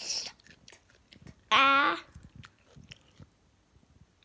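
Raw carrots being chewed, with small crunches and a noisy crunch right at the start. About one and a half seconds in comes a short held vocal tone lasting about half a second, the loudest sound.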